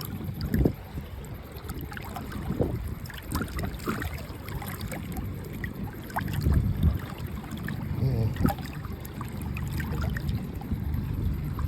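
Water lapping against a small fishing boat's hull, with wind on the microphone and scattered light knocks and clicks.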